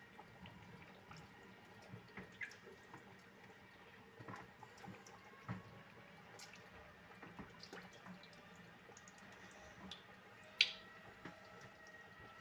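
Pot of thick tomato stew simmering, with scattered soft plops and drip-like pops of bubbles bursting at the surface. A sharper click about ten and a half seconds in.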